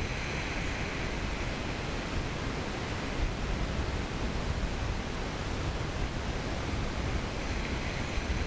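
Steady wash of small waves on a shingle beach, mixed with wind on the microphone. The hiss of the surf swells briefly at the start and again near the end.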